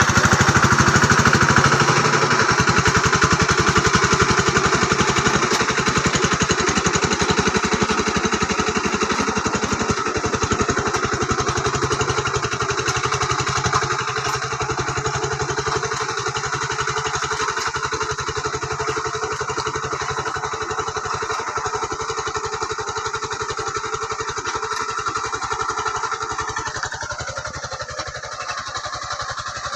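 Engine of a two-wheel hand tractor used for ploughing rice fields, running steadily with a rapid, even firing beat that slowly grows fainter.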